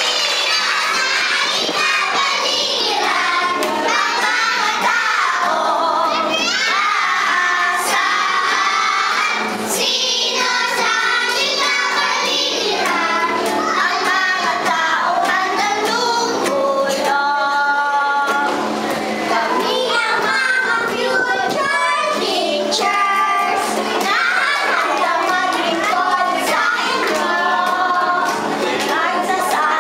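A group of young children singing a song into a microphone.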